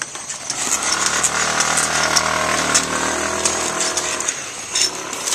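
Small motor scooter engine revving: its pitch rises and then falls back, and it fades out about four seconds in. A few sharp clicks come over it as the pogo stick bounces.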